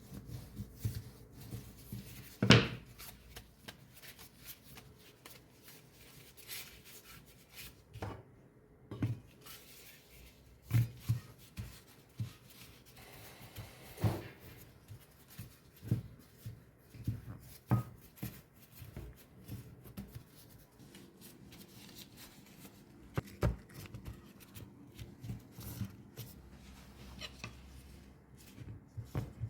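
Kitchen handling sounds: scattered light taps, knocks and rustles of food and utensils being handled on a work surface, with a sharper knock about two and a half seconds in.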